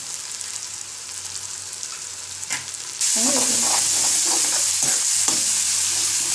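Onion-tomato masala with spices and red chilli paste sizzling in oil in a kadai as it is stirred. The sizzle jumps suddenly louder about three seconds in.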